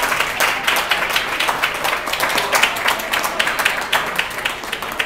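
Audience applauding: a dense patter of hand claps with no music underneath.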